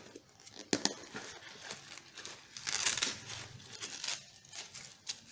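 Handling noise from a BCD's nylon fabric and a hose-retainer strap being wrapped around a replacement inflator hose: rustling with scattered clicks, and a longer rasping stretch about three seconds in.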